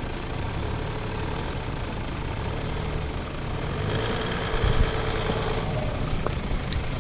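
Diesel 4x4 engines running at idle, getting louder about four seconds in, with a single low thump near the five-second mark.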